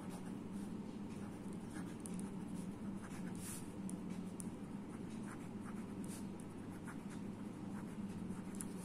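Ballpoint pen writing on ruled notebook paper: faint, short scratching strokes over a steady low hum.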